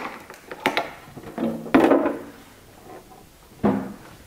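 Plastic engine cowling of a Suzuki DT9.9 outboard motor being unlatched and lifted off: a few sharp clicks of the latch in the first second, then a louder knock with a brief scrape, and another knock near the end.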